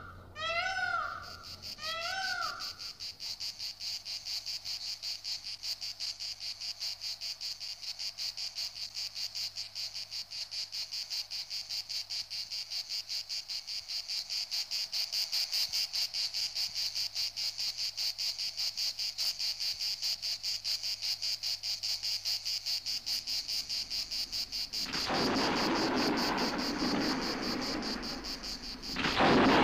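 High, fast and evenly pulsing cricket-like insect chirping runs steadily. It opens with three short arching animal calls, and about 25 seconds in a loud rushing noise joins it.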